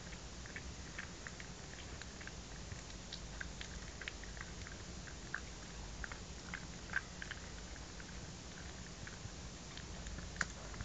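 Mother dog licking and nibbling a newborn puppy: faint, irregular wet licking and smacking clicks, a few louder ones scattered through.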